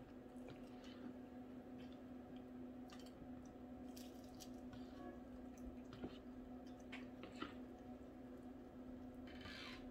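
Faint wet chewing and mouth sounds of someone eating a grilled cheese sandwich dipped in tomato soup, a few soft clicks and squishes scattered through, with a longer wet smear near the end, over a steady low hum.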